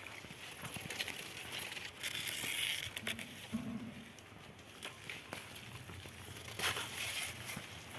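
Dry sugarcane leaves rustling and crackling as the stalks are handled, with scattered sharp snaps and a louder crinkly stretch a couple of seconds in.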